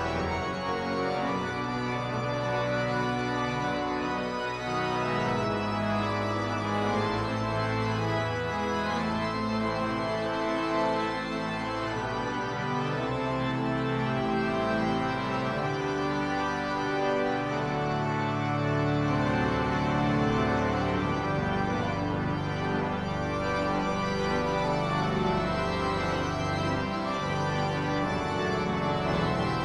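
Church pipe organ playing a piece with full, sustained chords over a deep bass line, the harmonies changing every second or so at a steady, fairly loud level.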